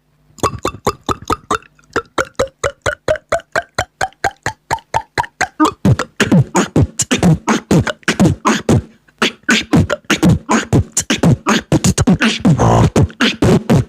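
Beatboxed water-drop sounds made with the mouth: a quick run of short pitched plops, about six a second, that climb in pitch. From about halfway they become a faster beat with deep, falling bass thumps mixed in.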